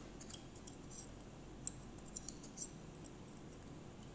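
A few faint, scattered metallic clicks and scratches as a pointed metal tool works around the bearing seat at the shaft of a Leybold Turbovac 150 turbomolecular pump's motor housing.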